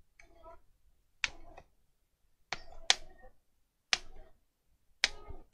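About five sharp, irregularly spaced clicks and taps from hard plastic and tools being handled on the repair bench while the tablet is taken apart.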